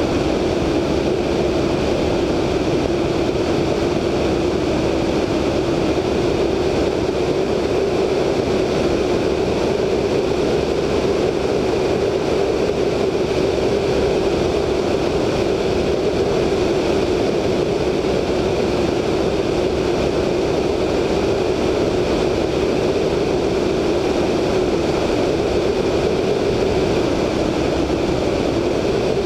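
A VL Viima II biplane's Siemens-Halske Sh 14A seven-cylinder radial engine drones steadily in cruise flight, mixed with a constant rush of air over the wing-mounted microphone.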